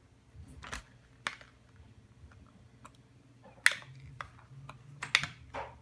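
Scissors snipping at a clear plastic package, a handful of irregular sharp clicks and snaps of the plastic, the loudest nearly four seconds in.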